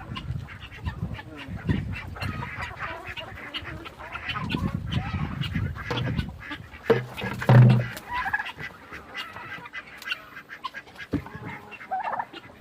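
Flock of farm poultry calling and clucking over each other, with short scattered calls throughout. Low rumbling handling and movement noise runs underneath, loudest in a brief low burst about seven to eight seconds in.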